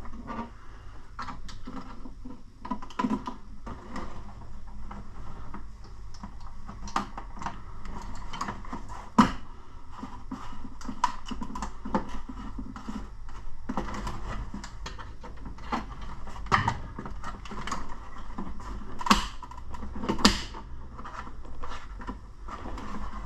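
Small irregular plastic clicks and taps as new control knobs are fitted onto a Vaillant ecotec boiler's control panel and the plastic fascia is handled, with a few louder knocks.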